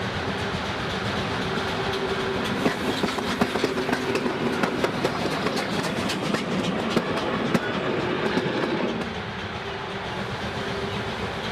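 Class 52 2-10-0 steam locomotive hauling a passenger train past, with wheels clicking over rail joints in a quick run of clicks from about two to eight seconds in. About nine seconds in the sound drops to a quieter, more distant running train.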